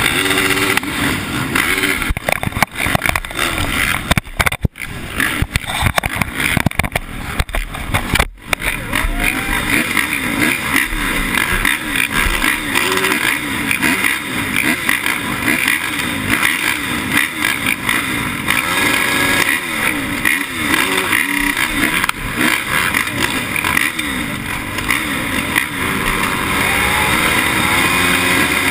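A crowd of 450-class motocross bikes idling and revving together at the starting gate, many engines blipping their throttles at once. The sound drops out briefly a couple of times in the first several seconds.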